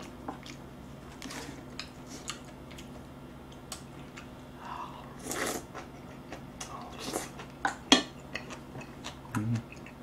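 Close-up eating sounds: a spoon and chopsticks clicking against a bowl, with brief slurps and chewing of a spicy seafood stew. One short hum comes near the end.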